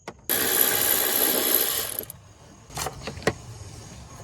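A ratchet with a 10 mm socket running a timing-cover bolt out, in one continuous rasping run of under two seconds that stops abruptly. A few light clicks and knocks follow.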